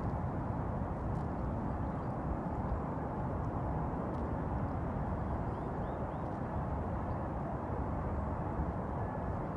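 Steady low outdoor rumble of wind and distant harbour noise, with no distinct events.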